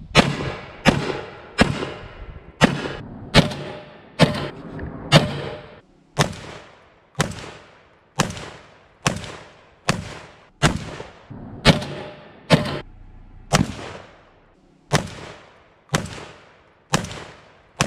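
GForce Arms GFZ semi-automatic 12-gauge bullpup shotgun firing a long string of about twenty shots at a steady pace, roughly one a second, each blast trailing off in a short echo.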